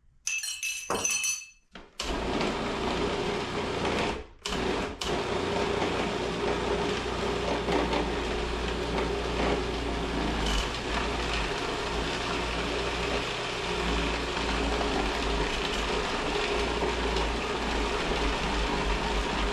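A spoon clinks against a glass, then a food processor motor starts about two seconds in, cuts out briefly twice around four to five seconds, and runs steadily, mixing pasta dough until it gathers into a ball.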